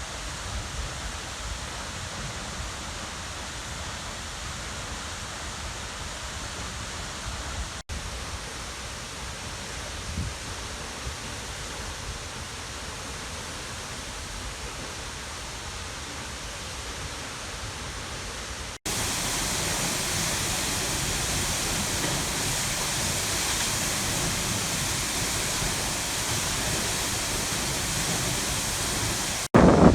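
Steady rushing roar of a waterfall, in three takes cut together. The last, starting about two-thirds of the way in, is louder and hissier.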